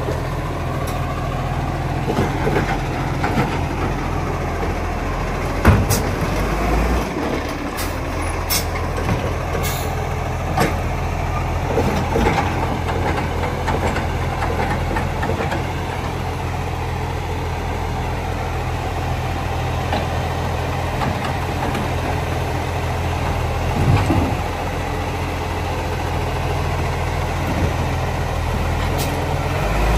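Garbage truck's diesel engine running steadily at low revs, its note stepping up about seven seconds in. A few short knocks and clunks come over it, the loudest about six seconds in and again near the 24-second mark.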